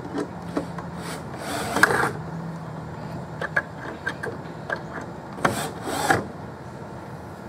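Plywood panel scraping and knocking against a wooden jig frame as it is shifted into place: two scraping bursts, one about two seconds in and one near six seconds, with a few light clicks between them.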